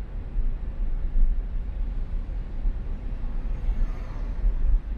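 A car driving along the road: a steady low rumble of engine and road noise, with tyre hiss that rises briefly about four seconds in.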